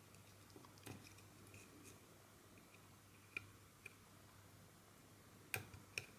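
Faint small clicks and taps of a flat flex cable being seated into its connector, plugging the LCD into a circuit board, with two sharper clicks near the end. A faint steady low hum lies underneath.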